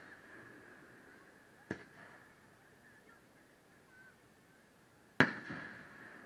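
Aerial firework shells bursting: a fainter bang about two seconds in, then a loud, sharp bang about five seconds in that trails off over about a second.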